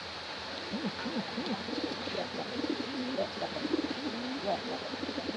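Domestic pigeons cooing, a run of short low calls that rise and fall in pitch, several a second, overlapping.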